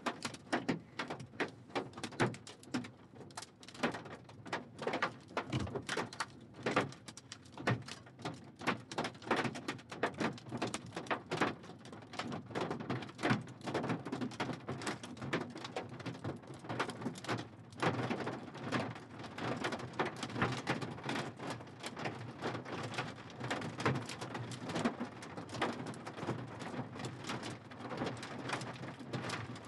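Small hail and rain striking the windshield and roof of a vehicle, heard from inside the cabin: a dense, irregular run of sharp taps and clicks.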